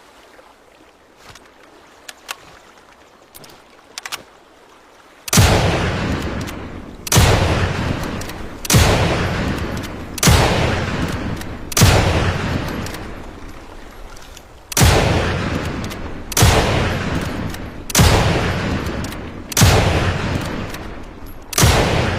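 Lee-Enfield bolt-action rifle firing ten shots, one every second and a half to two seconds with a longer pause after the fifth, each shot trailing off over a second or more. A few faint clicks come before the first shot.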